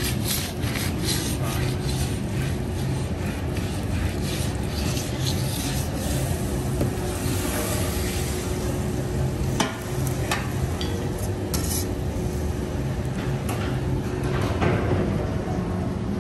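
Food sizzling on a hot teppanyaki griddle, with scattered clicks and scrapes of a metal fork against the plate, over a steady hum.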